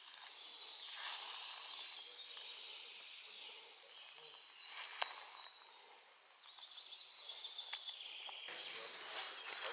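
Faint outdoor woodland ambience with birds chirping and trilling in the surrounding trees, and a couple of short sharp clicks.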